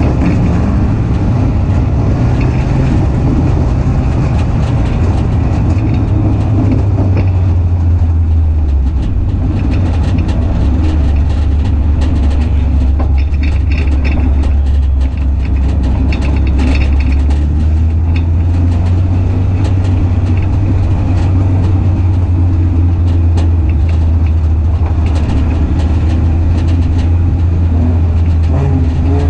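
Four-cylinder engine of a Hornet-class dirt-track race car running steadily, heard from inside the car, with scattered knocks and rattles. Its pitch drops about eight seconds in, then holds at a steady low speed.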